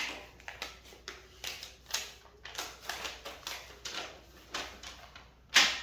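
Cardboard shipping box being opened and its paper packing handled: a run of irregular crinkles, rustles and scrapes, with a louder swish near the end.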